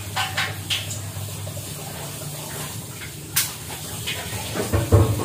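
Kitchen handling sounds: a few light clicks and knocks of utensils and dishes over a steady low hum, with a louder clatter near the end.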